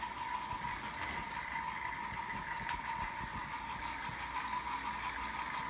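Small electric motor of a battery-powered motorized Thomas toy engine whirring steadily as it runs across carpet, with a single faint click about halfway through.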